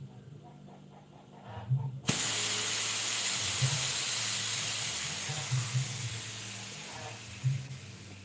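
Pressurised gas rushing out of a refrigerator's refrigerant pipe: a loud hiss starts suddenly about two seconds in and slowly fades away as the pressure drops.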